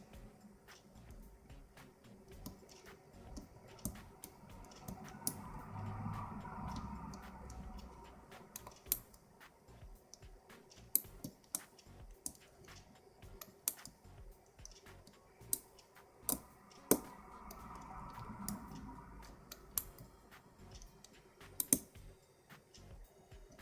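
Lock pick and tension wrench working the pins inside a Eurospec six-pin euro cylinder during single-pin picking. Irregular small metallic clicks and ticks, a few sharper than the rest.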